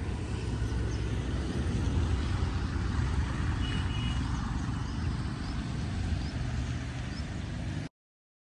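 Steady low outdoor rumble of wind and distant road traffic, with a few faint high chirps and a brief thin tone a little under four seconds in; it cuts off abruptly near the end.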